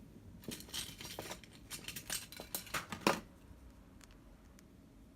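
Small hard objects being handled on a work surface: a quick run of clicks, taps and scrapes for about two and a half seconds, with one sharper click near the end, then it goes quiet.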